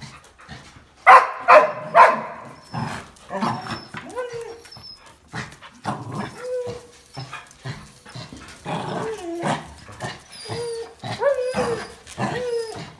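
Dogs playing tug-of-war with a towel: three sharp barks about a second in, then a run of short, high-pitched whining and growling calls.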